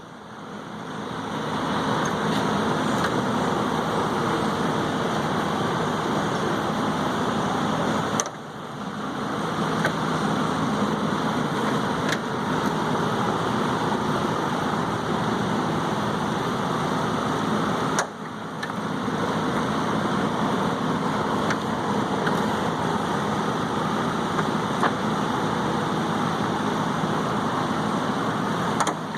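Steady mechanical hum with a few faint clicks. The hum drops out briefly near the start and about 8 and 18 seconds in, then fades back up.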